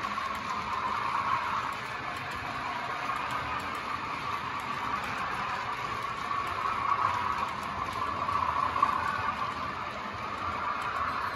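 Sound-fitted OO gauge model diesels: recorded diesel engine sound from the locomotives' small onboard DCC speakers, running steadily and swelling and easing a little. Over it comes the light ticking of a rake of model wagons rolling over the track.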